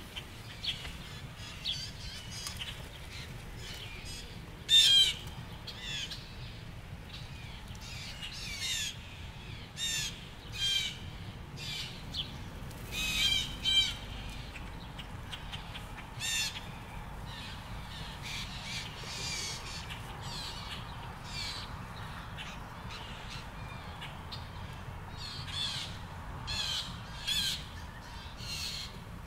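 Blue jays calling: short, harsh calls repeated every second or two, loudest about five seconds in and again around thirteen to fourteen seconds, over a faint low hum.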